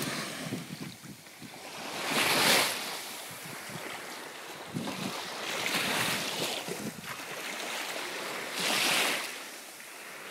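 Small waves washing up over the sand at the water's edge and draining back, each wash swelling into a hiss and fading, about every three seconds.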